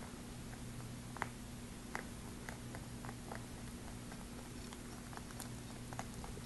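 A rabbit eating oats from a plate: faint, irregular clicking and crunching of chewing and nibbling, over a steady low hum.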